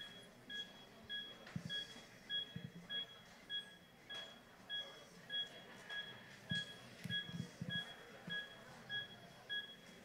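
CPR metronome on a resuscitation device beeping evenly at the chest-compression pace, about 100 beeps a minute, with soft low thumps from the compressions and handling.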